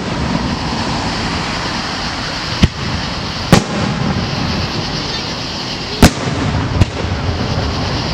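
Aerial firework shells bursting: four sharp booms in two pairs, the first pair about two and a half seconds in and the second about six seconds in, over a steady background din.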